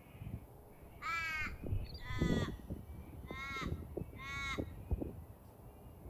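A crow cawing four times, each call a harsh caw about half a second long, roughly a second apart, over a low, uneven rumble.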